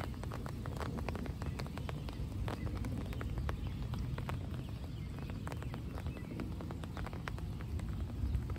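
Scattered raindrops ticking and pattering irregularly on nearby surfaces over a steady low rumble.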